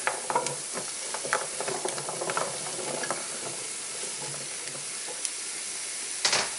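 Diced beets pushed off a plastic cutting board into a pan of sautéing onions, the pieces dropping in with scattered light taps and scrapes over a steady sizzle. A brief louder sound near the end.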